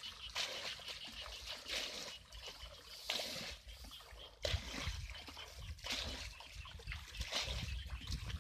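Shallow muddy water being bailed with a bucket: irregular splashing and pouring as water is scooped up and tipped out, with sloshing from feet wading through it. A low rumble joins about halfway through.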